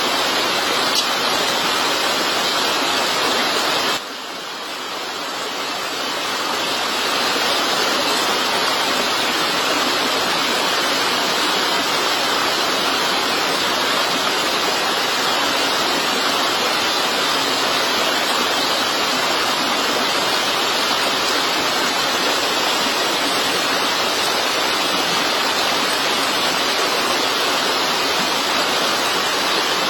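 Steady rushing noise of water, like a stream, waterfall or heavy rain. It drops suddenly about four seconds in and swells back up over the next few seconds.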